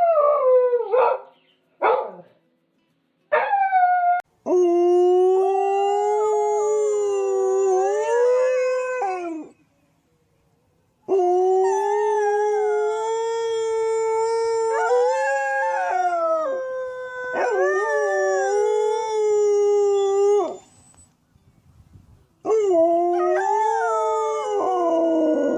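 A dog howling: a few short yelping howls, then four long drawn-out howls of about four to five seconds each, with short breaks between them.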